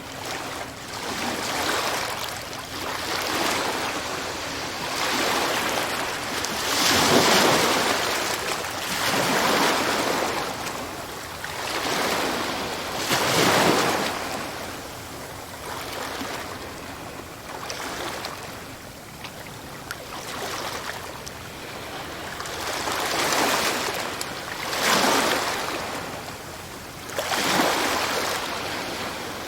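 Sea waves breaking and washing up the shore, each surge swelling and falling away every few seconds, the biggest breakers about a quarter and near halfway through and again near the end.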